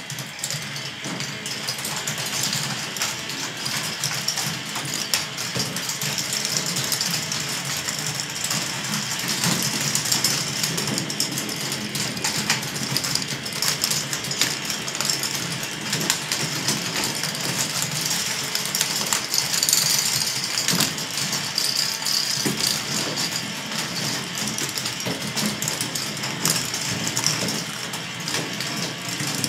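Large K'nex ball machine running: motor-driven lifts and chains give a steady mechanical whirring and rattling, with many small clicks of plastic balls rolling and dropping along the tracks.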